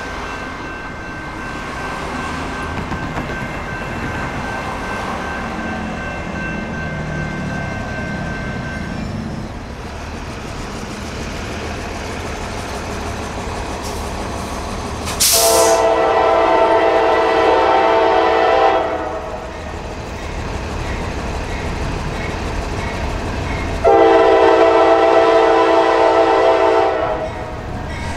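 Norfolk Southern GE AC44C6M diesel locomotive approaching at the head of a freight train: a low engine and rail rumble underneath, then two long blasts of its air horn, each about three seconds long and about five seconds apart, starting about halfway through.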